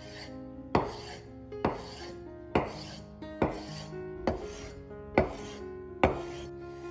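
A kitchen knife chopping on a cutting board: seven slow, even strokes a little under a second apart, over soft background music.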